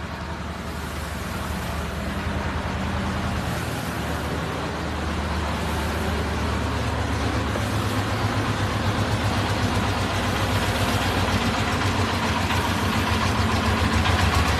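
Vehicle engine running steadily: a low drone with a fast, even pulse that grows gradually louder.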